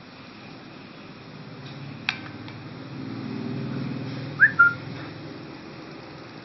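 Two short whistle-like chirps close together about four and a half seconds in, the first rising in pitch and the second level, after a single sharp click about two seconds in, over a low rumble of background noise.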